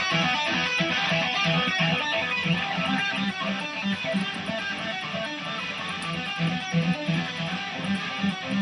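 Custom-built Ibanez Fireman electric guitar played through an amplifier on its DiMarzio Tone Zone bridge pickup: a quick, busy passage of many short picked notes over a repeating low note.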